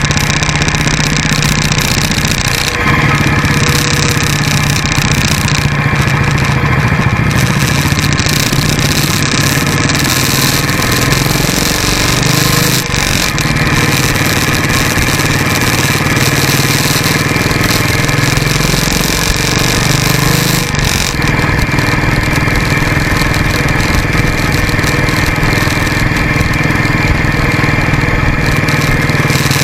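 Motorcycle engine running steadily as the bike rides along the road, its pitch shifting a little around the middle as the throttle changes, over a constant rush of road and wind noise.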